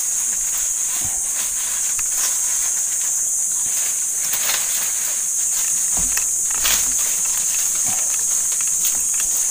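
Steady high-pitched chorus of insects, with a few soft rustles and clicks.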